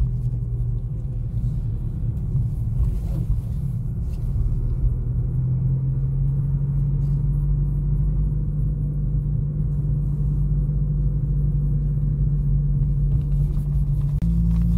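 Car engine and road noise heard from inside the cabin while driving: a steady low drone. Its pitch rises slightly about five seconds in and steps up abruptly near the end.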